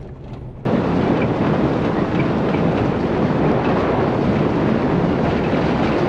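Loud, steady rumbling road noise of a vehicle driving on a rough road, with scattered faint rattles, cutting in suddenly about half a second in.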